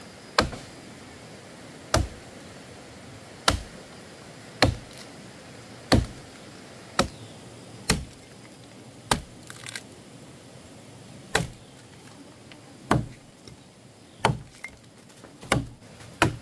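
A hand-held blade chopping into a fallen tree's trunk: sharp, separate chops about every second and a half, some thirteen strikes, with a short pause in the middle.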